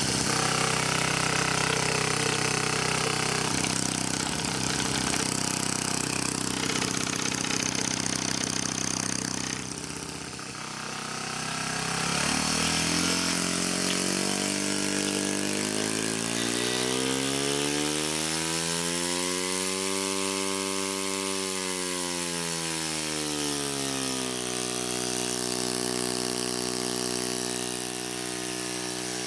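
Opened-up HVAC scroll compressor running with a loud, steady mechanical hum. About ten seconds in the sound dips briefly; then its pitch rises for several seconds and falls back to a steady hum.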